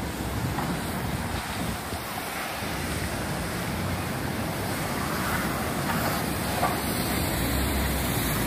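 Steady city street traffic noise, with a low rumble that swells near the end.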